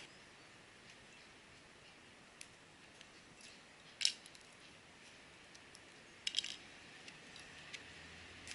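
Faint outdoor background with a few sharp clicks: a single loud one about four seconds in, and a quick cluster of clicks about six seconds in.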